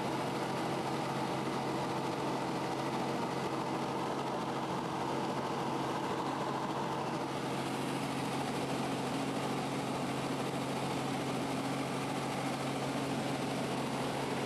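Robinson R44 helicopter in flight, heard from inside the cabin: a steady drone of its six-cylinder Lycoming piston engine and rotor with a constant low hum. The tone shifts slightly about halfway through.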